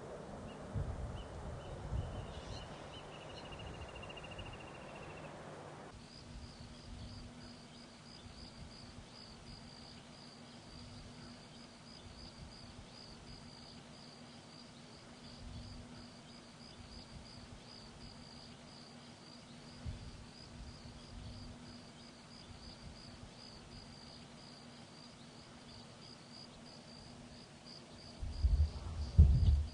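Quiet rural outdoor ambience: a steady, rapidly pulsing high insect trill with a faint low hum beneath it, starting abruptly several seconds in. Short bursts of low rumble near the end.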